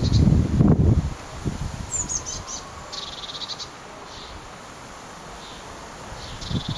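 High, thin blue tit calls: a quick run of falling notes about two seconds in, then a buzzy call and a few fainter ones. Wind buffets the microphone in the first second and again near the end, the loudest sound there.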